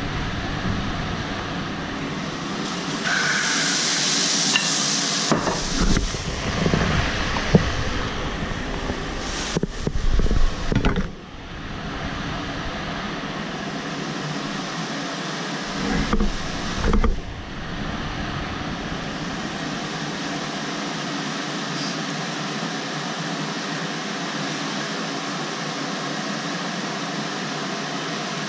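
Pancake batter going into a hot frying pan on a gas hob: a loud sizzle about three seconds in, then knocks and scrapes of the pan being handled, settling into a steady sizzle as the pancake cooks.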